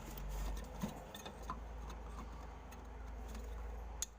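A few sharp clicks and taps from window air conditioner parts being handled and pried during disassembly, over a steady low rumble.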